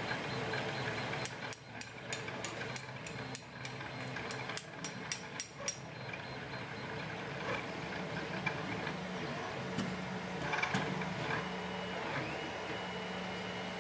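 Printer running steadily with a motor hum and held tones; a high tone dips and comes back near the end. About a second in comes a quick run of a dozen or so sharp clicks, about three a second, for some four seconds.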